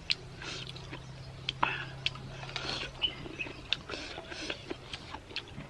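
Close-up mouth sounds of people eating by hand: wet chewing, lip smacks and short sharp intakes of breath, scattered clicks rather than any rhythm. A low steady hum runs underneath and stops about two-thirds of the way through.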